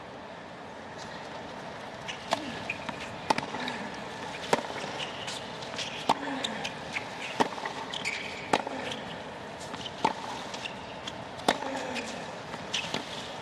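Tennis ball struck back and forth with rackets in a baseline rally: a sharp pop about every second and a half, over a steady stadium background hum.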